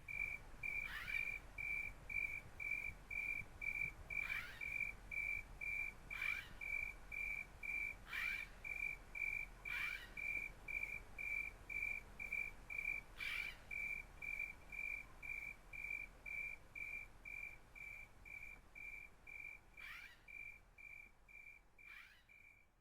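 A high-pitched chirp of one steady pitch, pulsing evenly about two and a half times a second like a cricket. Short downward-sweeping whistles break in now and then. The whole sound fades out near the end.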